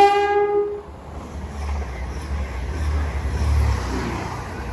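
Two-tone horn of a Grand Central Class 180 diesel multiple unit sounding, ending on its higher note about a second in, followed by the low rumble of the train passing through, which fades near the end.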